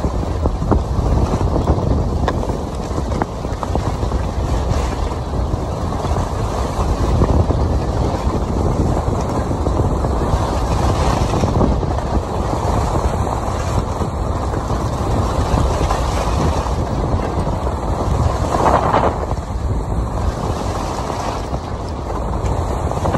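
Wind rushing over the microphone of a skier's phone during a fast downhill run, mixed with the hiss and scrape of skis on packed snow, with a brief louder rush near the end.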